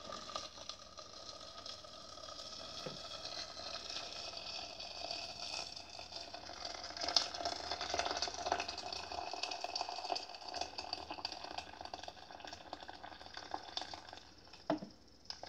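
Just-boiled water pouring in a steady stream from a stainless-steel electric kettle into a metal pot of soaked fava beans and lentils. A sharp clunk comes near the end as the pour stops.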